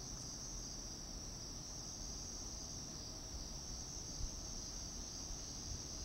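Steady, unbroken high trilling of a chorus of night-singing insects, with a faint low rumble beneath and one light knock about four seconds in.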